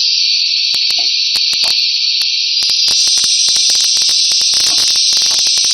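Pneumatic edible oil cap assembly machine: a steady loud hiss with many irregular sharp clicks and ticks.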